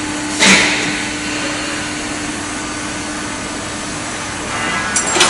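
Sunrise IW hydraulic ironworker running, its pump motor giving a steady hum with one constant tone. A short loud burst of noise comes about half a second in, and another near the end.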